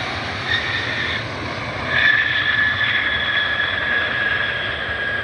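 Jet airliner's engines on landing approach: a steady rush with a high whine that comes in about half a second in and grows stronger about two seconds in.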